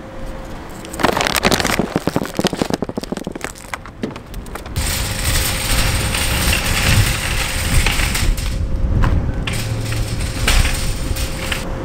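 Wire shopping cart rattling and clattering as it rolls over pavement, heard from a camera riding in the basket. About five seconds in, the clatter gives way to a steady outdoor rush of wind or traffic noise.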